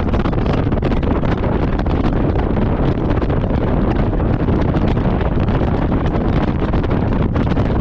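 Steady, loud low rumble of wind buffeting the microphone, with a crackly texture throughout.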